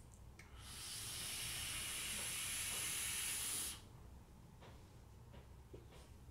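A long draw on an electronic cigarette: a steady airy hiss of air pulled through the atomizer over the firing coil for about three seconds, cutting off suddenly as the draw ends.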